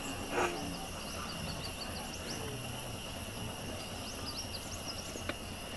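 Steady drone of forest insects, crickets or cicadas holding constant high shrill tones, with short bird chirps scattered through and one brief sharp crack about half a second in.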